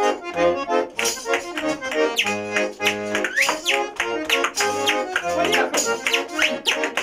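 Russian garmon playing a lively folk tune, with spoons clacking sharply in rhythm and whistled notes that slide up and down over the melody.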